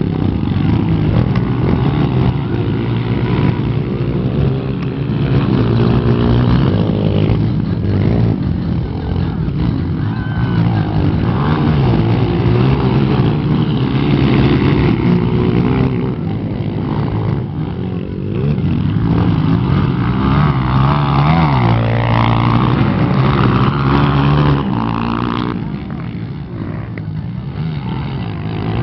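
Motocross motorcycle engines racing, their pitch rising and falling again and again as the bikes accelerate, shift and back off around the track.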